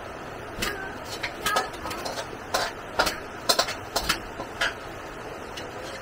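A series of about a dozen irregular sharp clicks and knocks over a few seconds, a few with a brief ring after them, over a steady background hiss.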